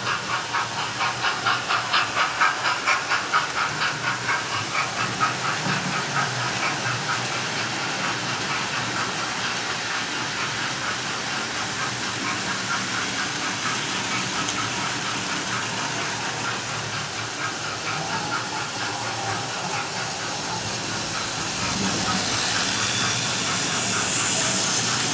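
Model railway trains running: a sound-fitted model steam locomotive's decoder chuffing with a steady beat and hiss, over the running noise of the models on the track. The beat is strongest in the first several seconds, and the hiss grows louder in the last few seconds as coaches and wagons pass close by.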